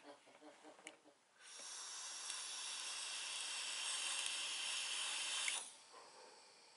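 Steady hiss of a long draw on a vape mod, air rushing through the tank's airflow as it is inhaled. It starts a little over a second in, holds for about four seconds and stops abruptly, followed by a faint exhale.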